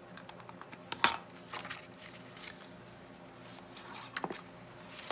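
Paper and card being handled: light rustling with a few sharp taps. The loudest tap comes about a second in, and a quick cluster of taps follows near four seconds.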